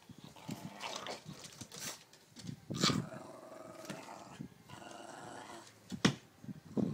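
Staffordshire bull terrier growling in a long, drawn-out rumble, broken by two sharp, short sounds, one about three seconds in and a louder one near the end.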